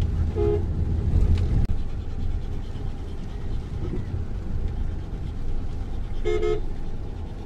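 Low, steady rumble of a car driving on a potholed, muddy road, heard from inside the cabin. A two-note car horn toots briefly about half a second in, then gives a longer, louder toot near the end.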